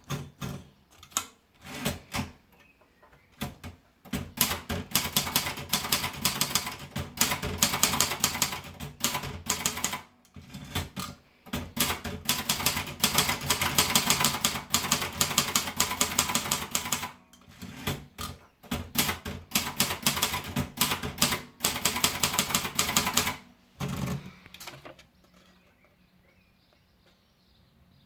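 Silver-Reed Silverette II manual portable typewriter being typed on. A few separate keystrokes come first, then fast runs of key strikes broken by short pauses. The typing stops about three seconds before the end.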